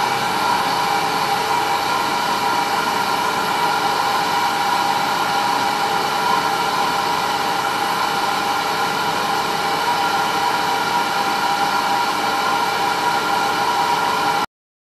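Homemade CNC mill's spindle running with an end mill cutting a finishing profile on an aluminium block. It makes a steady high whine of several tones over a hiss, and stops suddenly near the end.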